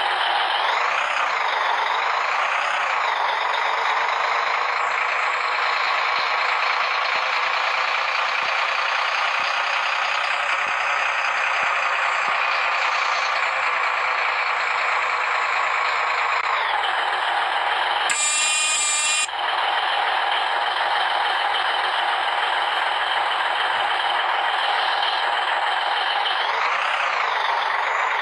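Heavy road construction machinery running: a loud, steady, dense mechanical noise, broken by a brief different sound about eighteen seconds in.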